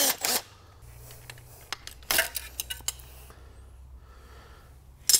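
A brief burst from a cordless impact driver at the start, then the metal dipstick tube of an LS engine being worked free and pulled out: sharp metallic clatters about two seconds in, light clicks, and a ringing clink near the end.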